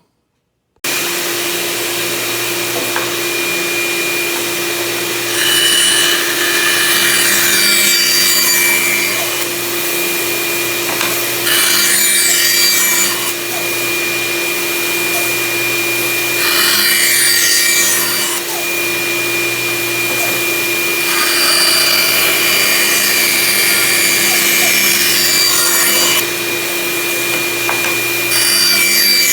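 A bandsaw and a dust collector running with a steady hum, the bandsaw cutting through wood about five times. Each cut lasts a few seconds and is louder than the hum. The machine sound starts abruptly just under a second in.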